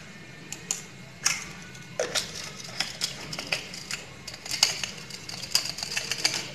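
Irregular plastic clicks and taps from a small hamster water bottle being handled: its blue sipper cap put on and the bottle turned over and shaken, the clicks coming faster in the second half.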